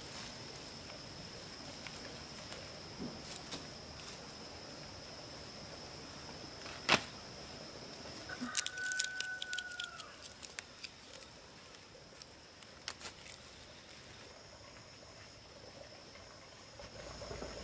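Quiet rural yard ambience: a steady high insect drone, with a rooster crowing once in the distance about halfway through. Leafy vegetable stems rustle and crackle as they are handled around the same time, and there is a single sharp click a little before.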